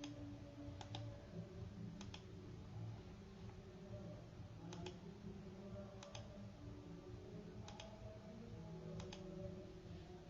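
Faint sharp clicks, about seven of them and several in quick pairs, irregularly spaced a second or more apart, over a low steady background hum.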